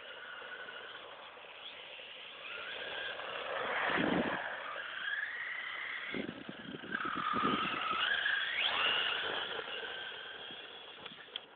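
Electric RC buggy's Feigao brushless motor and gears whining, the pitch rising and falling as it accelerates and slows. It gets louder about four seconds in and again from about seven to nine seconds.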